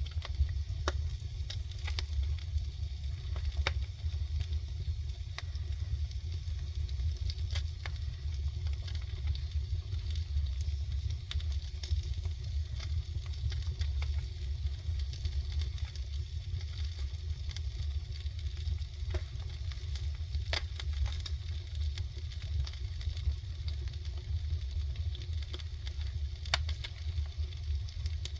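Mackerel sizzling over an open wood fire, the burning logs crackling with sharp pops every few seconds, over a steady low rumble.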